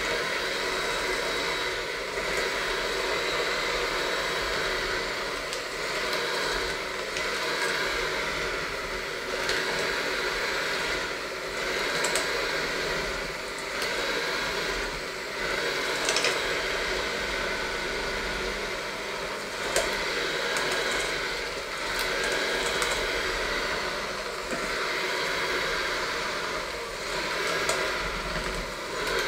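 Electric hand mixer running steadily, its beaters working through a stiff dough in a stainless steel bowl; the whir wavers a little in level as the load changes.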